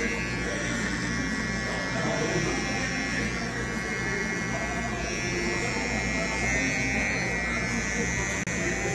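Electric hair trimmer buzzing steadily as its blade cuts a line design into short hair at the nape of the neck.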